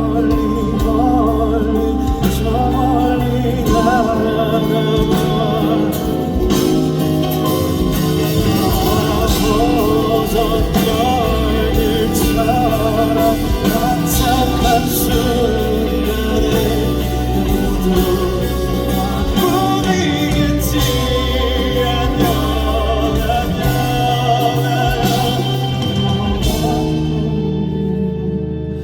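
Live band performance of a slow pop song, with singing over a steady bass line and drums. The band thins out near the end.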